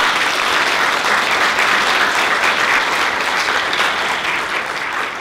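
Audience applauding, a dense steady patter of many hands clapping that eases off slightly near the end.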